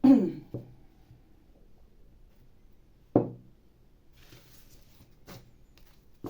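A single sharp knock on a wooden surface about three seconds in, dying away quickly, after a short loud sound at the very start. A couple of faint taps follow near the end.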